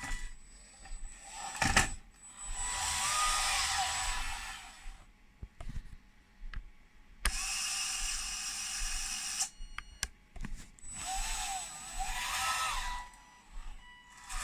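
Radio-controlled model Volvo EC550 excavator working: small electric motors whine in three bursts of a couple of seconds each, the pitch rising and falling, with clicks and a sharp knock of plastic parts about two seconds in.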